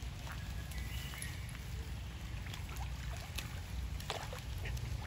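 Young macaques splashing and scrambling in a shallow muddy puddle: scattered short splashes and patters over a steady low rumble.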